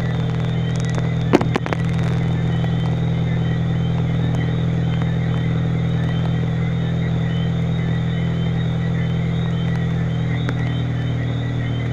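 Steady rain noise over a constant low hum, with one sharp click about a second and a half in.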